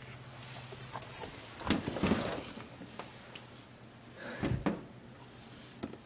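Handling noises as a digital multimeter and its test leads are set up: rustling with a few light knocks and clicks, in two short bouts, over a faint steady low hum.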